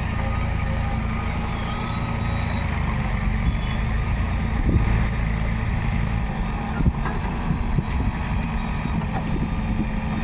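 JCB backhoe loader's diesel engine running steadily while working, with a few sharp knocks near the middle.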